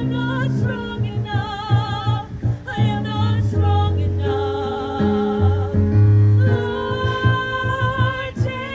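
A vocal ensemble singing a musical theatre number, voices held on long notes with a wavering vibrato, over low sustained notes underneath.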